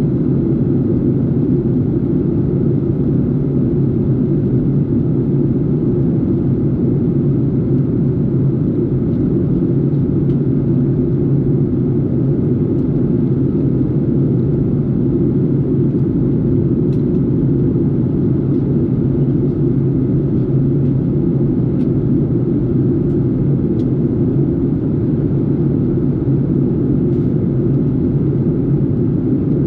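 Steady cabin drone of a jet airliner in flight: engine and airflow noise heard from a window seat, a low, even rumble with a constant hum, with a few faint ticks now and then.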